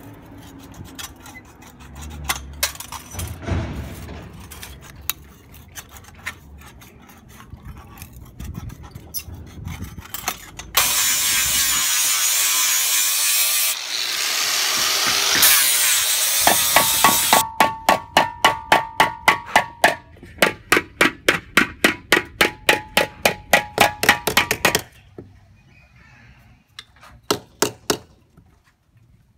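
Sheet metal being cut with a hand lever shear, with irregular snips and clicks. Then an angle grinder grinds the edges of cut sheet-metal pieces in a steady hiss for about six seconds. Then comes a run of sharp, ringing metallic strikes, about three a second, followed by a few faint clicks.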